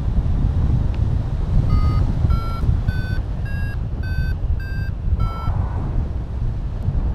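Paragliding variometer (XCtracer Mini IV) sounding its climb tone: seven short beeps about 0.6 s apart starting about two seconds in, the pitch stepping up and then dipping slightly at the end, the signal that the glider is climbing in lift. A steady rush of wind on the microphone runs underneath.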